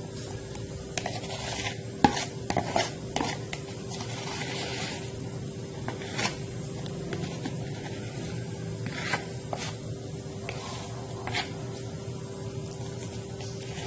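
Utensils scraping and knocking against a bowl and tin as banana cake batter is scraped into the tin: irregular scrapes and light clinks, the loudest knock about two seconds in, over a steady hum.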